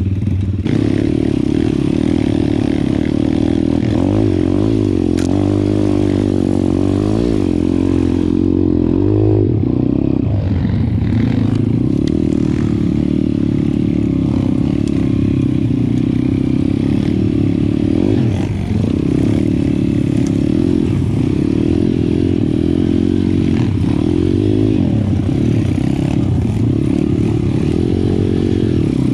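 Pit bike engine under way off-road, its revs rising and falling over and over as the throttle is opened and closed.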